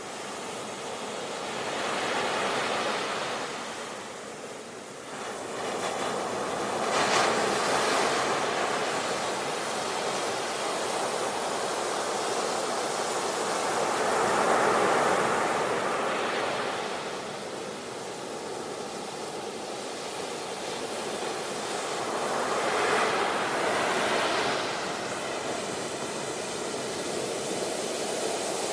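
Ocean surf breaking on a beach, a steady rush of water that swells and ebbs every several seconds as waves come in.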